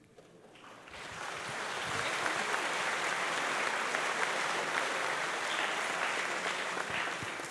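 Audience applauding, swelling over the first couple of seconds and tapering off near the end.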